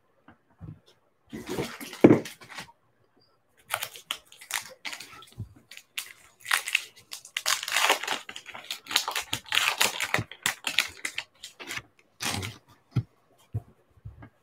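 A trading-card pack's shiny foil wrapper being torn open and crinkled by hand, a long run of crackling and tearing. About two seconds in there are a couple of short knocks and rustles as cards are set down on a stack.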